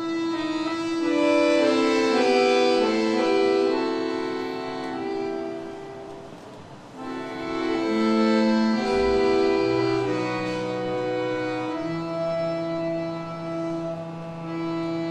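Accordion playing a Russian folk-song arrangement: a melody in held notes over chords, growing quieter about six seconds in and returning a second later, with long sustained bass notes under the melody in the second half.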